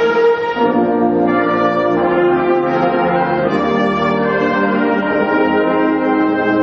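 Large concert band playing held, brass-heavy chords, changing chord about half a second in and then sustaining.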